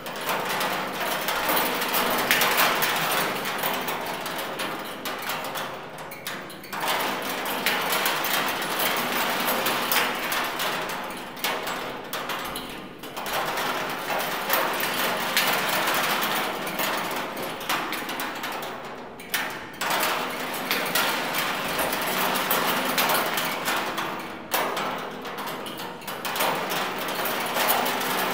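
Spoons and wire set going by a motor, rattling against a rusty oil drum: a dense metallic clatter of fast clicks that falls away briefly and builds again about every six seconds.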